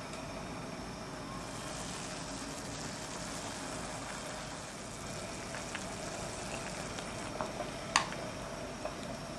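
Pot of water with radish and kelp at a rolling boil, bubbling steadily. A few light clicks and one sharp knock about eight seconds in come from a wooden spoon stirring in the pot.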